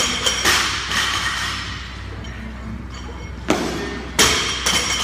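Barbell loaded with bumper plates landing on a rubber gym floor during deadlift reps. Each landing is a thud followed by a metallic ring from the bar and plates, in a cluster at the start and another about three and a half seconds in.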